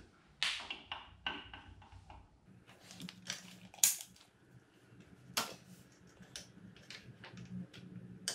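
Irregular clicks and knocks of parts being handled and fitted onto an outboard motor's linkage by hand, the loudest a sharp click about four seconds in.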